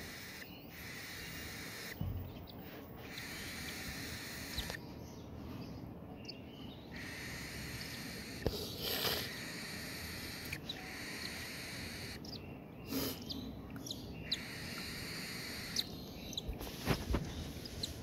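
Newly hatched cockatiel chicks giving a few faint, short, high cheeps, with soft handling noises as a chick is held for hand-feeding.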